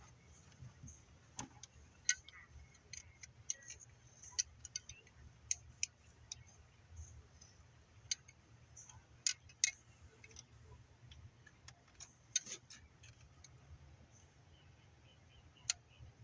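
Irregular light clicks, taps and clinks of hands and tools working a car's heater hose back onto its fitting in the engine bay, over a faint low hum.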